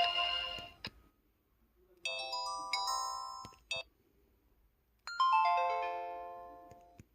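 KTF-E3300 mobile phone's built-in electronic chime tones, played one after another. The first second holds the fading end of one tone. About two seconds in comes a quick jingle of bell-like notes lasting under two seconds. About five seconds in a brighter chime starts and rings down over two seconds.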